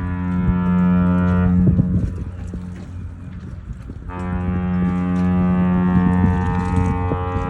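Deep ship's horn of the cruise ship Mein Schiff Relax sounding long blasts on departure: one blast fades out about two seconds in, and another starts about four seconds in and carries on.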